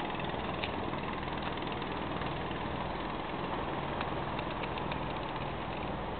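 People asleep snoring: a steady, rough low rumble.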